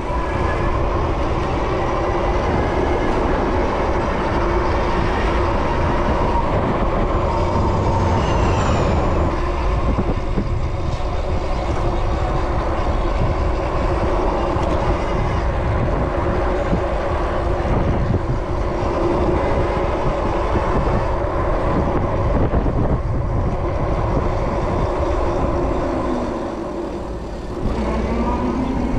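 Steady city traffic noise heard while riding an electric bike in traffic, with a rising whine near the end.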